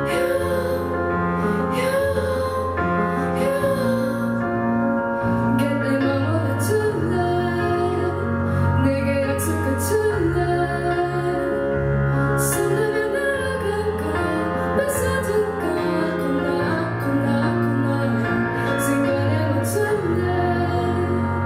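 A female vocalist sings live into a microphone with piano accompaniment, holding long notes over sustained piano chords.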